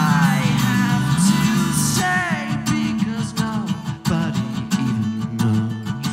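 A cutaway acoustic guitar is strummed and picked in quick, busy rhythm. A man sings over it with sliding, falling notes, mostly in the first half.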